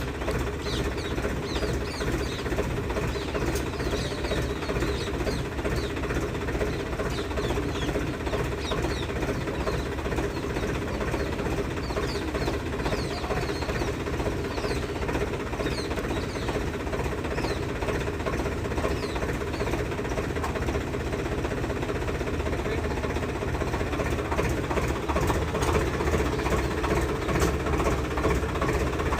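Diesel engine running steadily at low revs, a little louder near the end, with many short high chirps over it.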